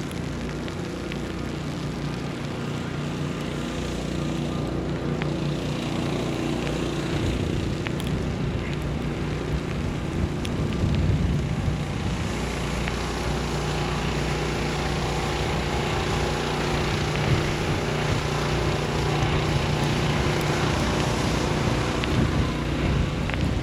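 A steady low motor hum under a wash of city street noise, getting a little louder about four seconds in.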